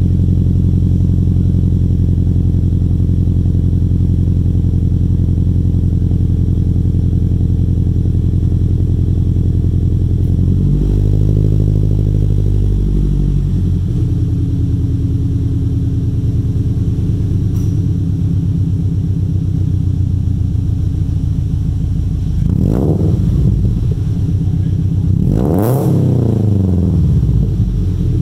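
Toyota 86's 2.0-litre flat-four, breathing through unequal-length headers and a catless aftermarket exhaust, idling steadily. Near the middle the revs lift and hold for a couple of seconds before settling back. Near the end come two quick throttle blips, the second higher, each rising and falling in pitch.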